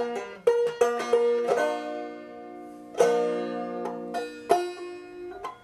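Background music on a plucked string instrument: a run of picked notes, then two ringing chords that fade as the tune ends.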